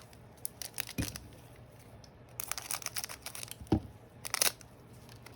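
Trading cards being handled and set down on a table: crinkly rustling of card and wrapper with small clicks, and two soft taps about a second in and near four seconds.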